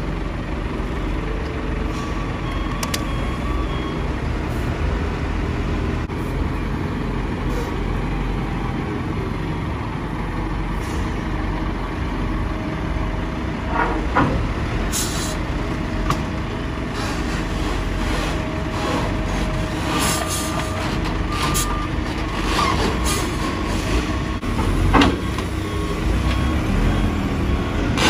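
Heavy forklift engines running while lumber is loaded into a shipping container, with scattered clunks and knocks and a sharp knock near the end.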